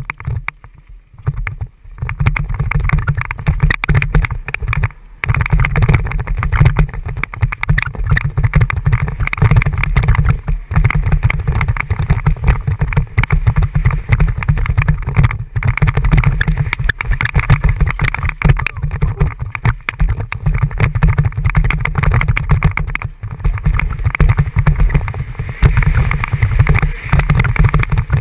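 A mountain bike rattling and clattering down a rough dirt trail, with heavy wind buffeting on the microphone. It is quieter for the first two seconds, then loud and constant with a brief dip near five seconds.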